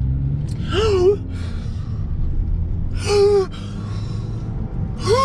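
Intro music: a steady low bass drone with three breathy, gasp-like vocal sounds about two seconds apart.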